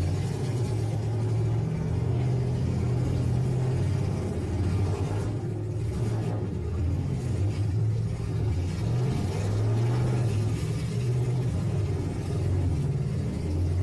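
Engines of several battered stock half-ton pickup trucks running in a demolition derby: a steady low rumble whose pitch rises and falls as they rev.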